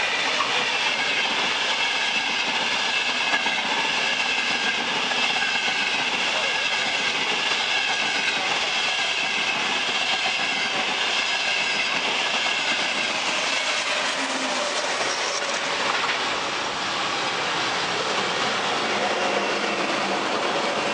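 Frecciarossa high-speed electric train running through the station, a steady rushing of wheels on rail with some clatter. About 14 seconds in the sound changes as a Trenitalia Frecciabianca train, led by its electric locomotive, rolls past on the near track.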